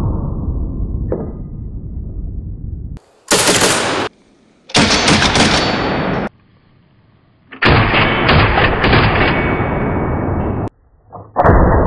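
Short-barrelled AK rifle in 7.62×39 with a muzzle brake firing. After a fading low noise, the gunfire comes in four loud spells, starting about three, five, eight and eleven seconds in, each starting and stopping abruptly.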